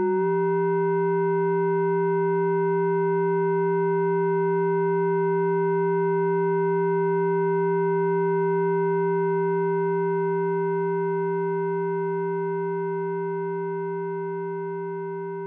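Eurorack modular synthesizer oscillator holding one steady note rich in overtones, its tone shifting slightly just after it begins, then fading out over the last several seconds.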